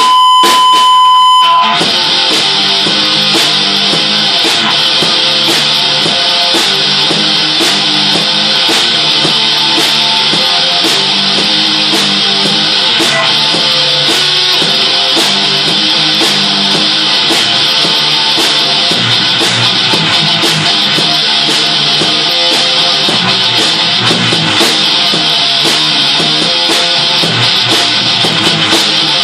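Electric guitar played through an amplifier: a single held high note for about the first two seconds, then dense, distorted, rock-style playing at a steady loud level.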